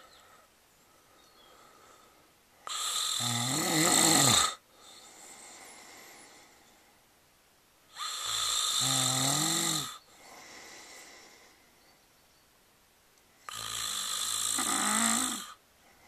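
A man snoring in his sleep: three loud snores, each about two seconds long with a wavering pitch, coming about every five seconds, with soft breaths between them.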